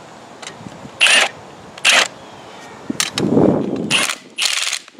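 An impact driver with a 14 mm socket spinning a nut along a threaded steel tie rod in several short bursts, tightening the rod to pull a cracked concrete beam together.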